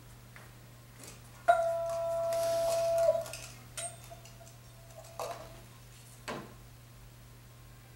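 A high whistle-like tone starts sharply, holds steady for about a second and a half, then cuts off with a slight drop in pitch. A few short faint taps and scrapes follow, the last a quick downward swish.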